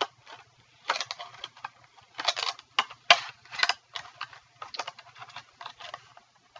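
Thin plastic packaging crinkling and rustling as it is handled and opened, in short irregular bursts.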